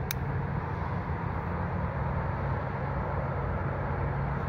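Steady outdoor background noise with a constant low hum, the sound of traffic or wind on the microphone, and one sharp click just after the start.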